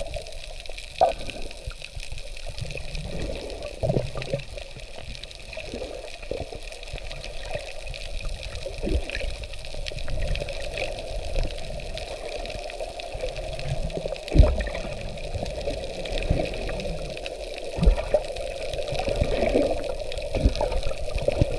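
Muffled underwater sound from a camera just below the sea surface: steady water churning and bubbling, with short low knocks every few seconds, the loudest about fourteen seconds in.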